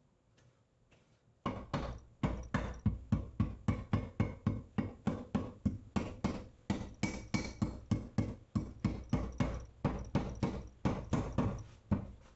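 Rapid, even tapping on the Yamaha GP HO engine's crankcase, seating the two sealant-coated halves together: about four knocks a second, starting a second and a half in.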